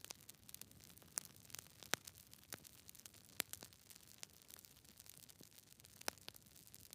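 Wood fire crackling: irregular sharp pops and snaps, several a second, over a faint steady hiss.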